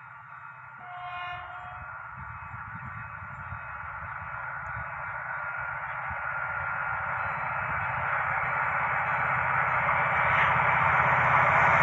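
Medway Class 333 diesel locomotive, powered by an EMD 16-645-E3 engine, approaching with a loaded car-carrier train and growing steadily louder: a steady high turbocharger whine over a low throbbing engine note.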